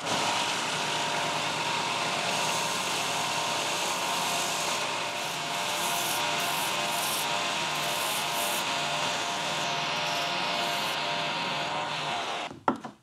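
A power abrasive tool grinding or sanding metal steadily, with a faint hum of a motor running under it. It stops abruptly shortly before the end.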